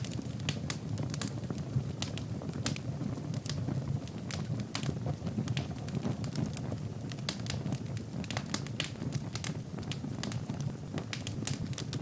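Birch-log fire burning in a fireplace: a steady low rush of flame with many irregular crackles and pops.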